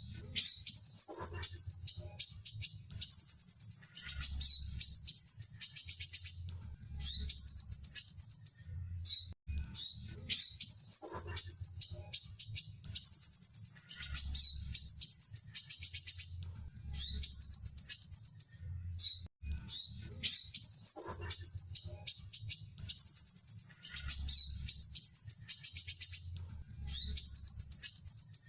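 Sunbird singing: rapid, high-pitched twittering phrases, each a second or two long, separated by short breaks and repeating in a regular cycle.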